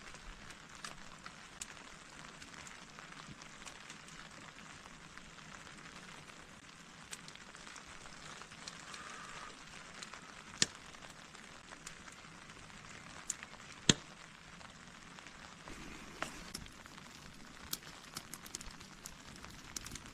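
Steady rain hiss with scattered sharp clicks through it; two of the clicks, about eleven and fourteen seconds in, stand out louder than the rest.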